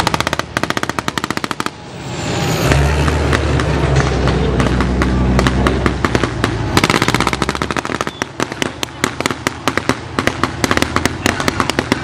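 Machine-gun fire in rapid bursts at the start and again about seven seconds in, followed by scattered single shots and short bursts. In the lull between, the low steady engine of a Type 89 infantry fighting vehicle runs as it drives up.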